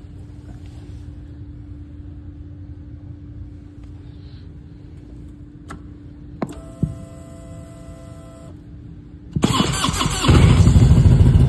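1998 Harley-Davidson Electra Glide's Evolution V-twin being cold-started: a few clicks and a steady tone for about two seconds as the ignition comes on, then the starter cranks for under a second and the engine catches and runs loudly.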